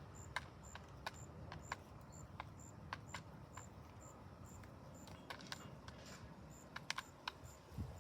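Pigeons pecking at seed on a hard surface: sharp, irregular taps, one to a few a second, over a low steady hum.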